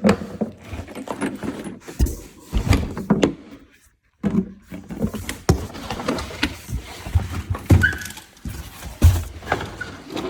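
Handling noise from unboxing a Craftsman tool set: the box and packaging being pulled open and moved about, with irregular knocks, thumps and rattles, and a short pause about four seconds in.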